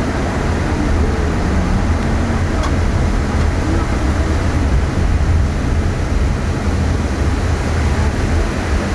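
A car driving slowly, with a steady low rumble of engine and tyres on the road heard from inside the cabin.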